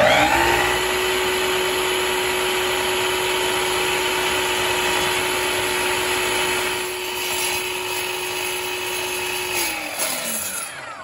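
Festool Kapex KS 120 EB sliding miter saw starting up with a rising whine, running at full speed, and the blade lowered through a small plastic part held against a wooden block; the motor winds down near the end.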